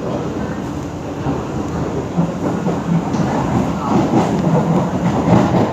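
Inside a Kawasaki-Sifang C151A metro train car running on the track: a steady rolling rumble with irregular wheel clatter, growing louder and busier in the second half.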